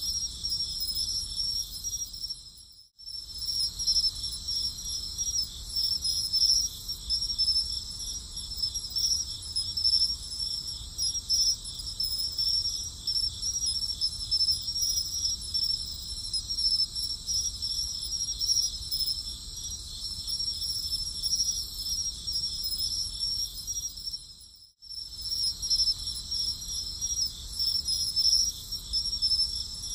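A chorus of crickets trilling steadily and high-pitched. It cuts out briefly twice, about three seconds in and again late on.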